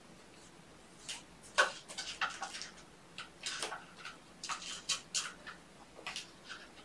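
Kittens play-wrestling in a fabric cat bed: an irregular run of short scuffling noises, starting about a second in.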